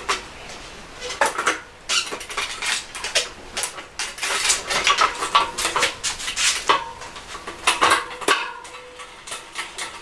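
Irregular metallic clicks and clinks from a road bike's rear wheel, chain and Ultegra drivetrain as the rear wheel is fitted into the frame and the chain and crank are handled, with one brief ringing note about seven seconds in.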